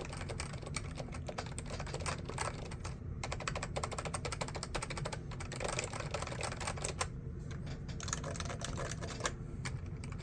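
Rapid continuous typing on a rubber-dome-over-PCB keyboard with sliders: quick, dense keystroke clicks, with a few short pauses.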